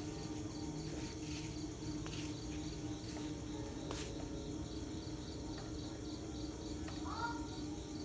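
Crickets chirping in an even, repeating pulse, over a steady low hum.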